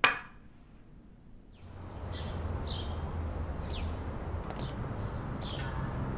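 A small ceramic cup set down hard on a table with one sharp knock. About a second and a half later, outdoor ambience with a low steady rumble begins, and birds chirp several times in short falling calls.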